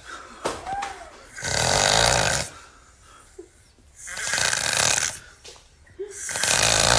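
A person snoring: three long snores about two and a half seconds apart, each lasting about a second, with quieter breathing between.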